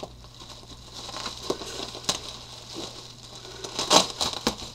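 Bubble wrap crinkling and crackling as it is handled and pulled off a wrapped object, in irregular bursts with the loudest about four seconds in.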